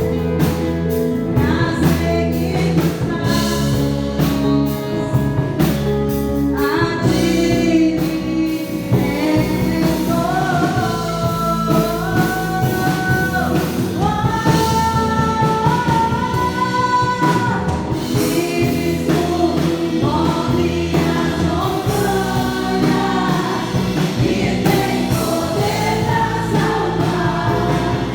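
Gospel worship music: voices singing a melody over a band with sustained keyboard chords, bass and drums.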